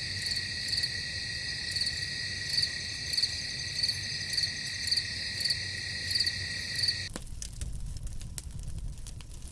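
A chorus of night insects trilling steadily, with a louder pulsing call about once or twice a second. It cuts off suddenly about seven seconds in and gives way to faint scattered clicks and crackles over a low rumble.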